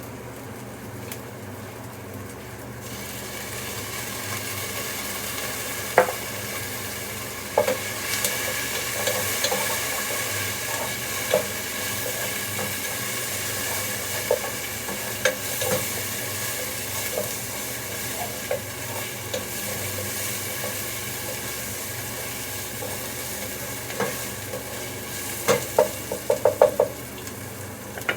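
Food sizzling in a frying pan, the sizzle growing stronger a few seconds in, with occasional sharp knocks of a utensil against the pan and a quick run of taps near the end.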